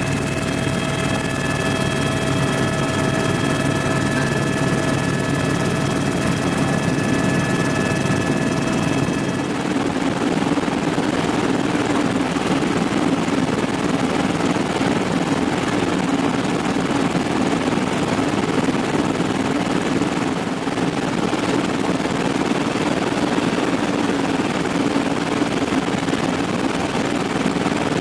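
Helicopter cabin noise in flight: the steady rumble and whine of the turbine engine and rotors. A set of high steady whining tones over it cuts off abruptly about nine seconds in, leaving the even drone.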